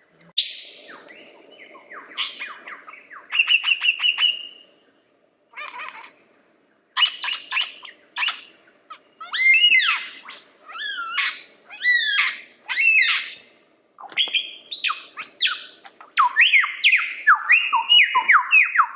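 Male lyrebird singing a loud, varied song of many different phrases: rapid runs of repeated notes, loud downward-sliding whistles, and near the end a quick string of falling sweeps.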